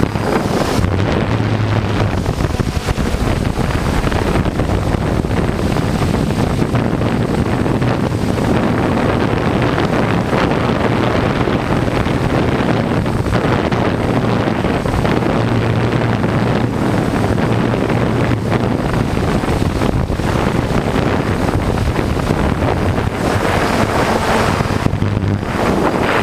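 Strong gusty wind buffeting the microphone, a steady loud rush, with a low hum that swells and fades several times.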